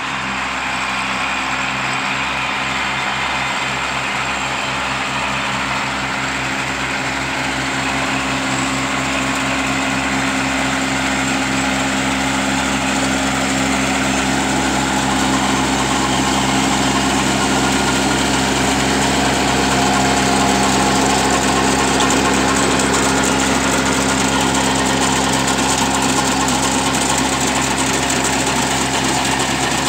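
Kubota A211N compact tractor's small three-cylinder diesel engine running steadily under load while driving a rotary tiller through the soil. It grows slightly louder about a third of the way in.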